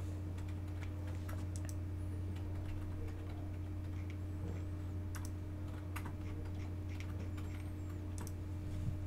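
Steady low hum with faint, irregular clicks now and then.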